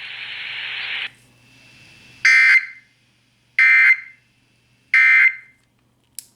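Radio hiss for about a second, then three short, loud, buzzy data bursts about 1.3 s apart: the Emergency Alert System SAME end-of-message code, which marks the close of the broadcast alert. A faint click follows near the end.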